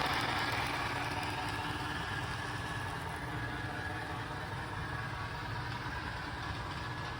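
MTH O-gauge model of Nickel Plate Road steam locomotive 765 running at full speed on the track: a steady mechanical running noise from its motor and wheels, getting somewhat quieter over the first few seconds.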